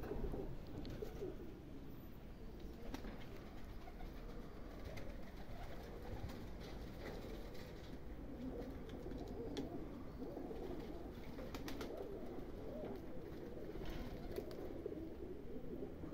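Domestic pigeons cooing, a faint, continuous low murmur.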